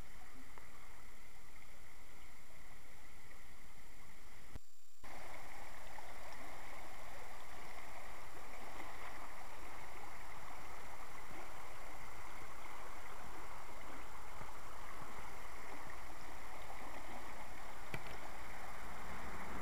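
Shallow creek running over rocks in riffles, a steady rushing of water. It breaks off for about half a second near five seconds in, then goes on a little louder.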